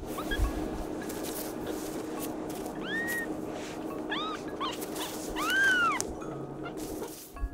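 Newborn kitten mewing: a series of short, high, rising-and-falling cries, several in quick succession, with the longest and loudest near the end.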